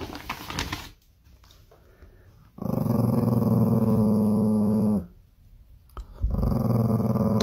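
A small dog growling: two long, steady, low growls, the first starting a couple of seconds in and the second near the end.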